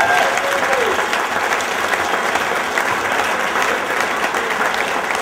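A roomful of guests applauding steadily, with a few cheers in the first second.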